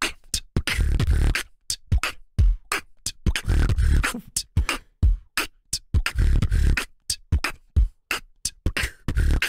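Human beatboxing into a microphone: a rhythmic groove of deep, sometimes held bass thumps alternating with sharp clicks and hi-hat-like ticks.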